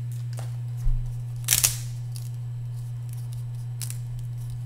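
Crinkle and rustle of a trading-card pack's wrapper being torn away and the cards handled: a short, sharp rustle about a second and a half in and another near four seconds, with a soft low thump just before the first. A steady low hum runs underneath.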